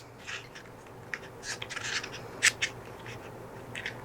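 Nylon braiding cord being handled and pulled tight around beads: soft, scratchy rustles with a few light clicks about halfway through.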